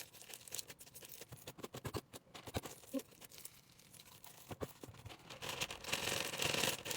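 Plastic bag of floam beads crinkling as it is shaken and squeezed, with scattered clicks of the tiny foam beads dropping out. The rustling gets denser near the end.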